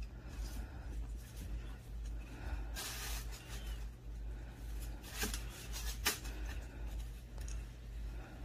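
Puppy playing with plush toys on a hard laminate floor: scratchy rustling and dragging of the fabric toys, with a longer rustle about three seconds in and a few sharp taps later, over a steady low hum.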